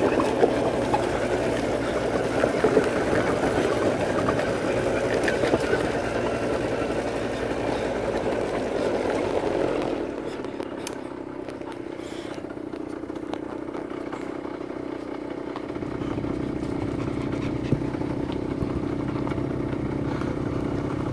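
Quad bike engine running while riding along a rough dirt track. About ten seconds in it drops to a quieter, lower run, and a low engine hum comes back a few seconds later.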